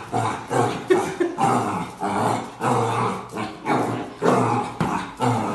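Black puppy growling and barking at its own reflection in a mirror, in short repeated bursts about two or three a second.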